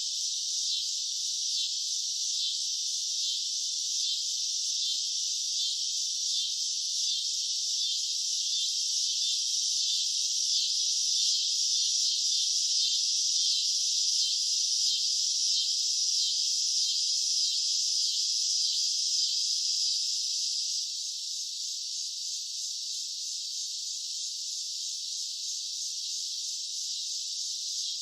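Cicadas buzzing in a steady high chorus with a fine rapid pulse. It swells a little through the middle and eases down slightly about three-quarters of the way through.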